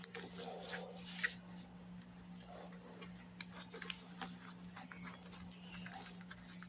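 Faint scattered clicks and light taps from objects being handled, over a steady low hum.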